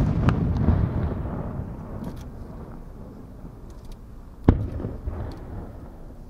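Aerial firework shell bursting with a sharp bang, followed by a rumbling echo that fades over about two seconds. A second bang comes about four and a half seconds in, with a shorter rumble after it.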